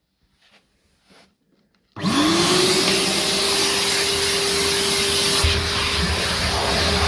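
Numatic NTD570 vacuum cleaner switched on about two seconds in. Its motor whine rises quickly to a steady pitch under a loud rush of air. A little past halfway the sound turns deeper and heavier.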